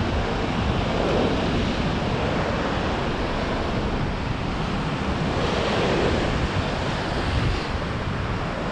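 Ocean swell surging and breaking into foaming white water against a rock ledge. The wash swells up twice, about a second in and again past the middle.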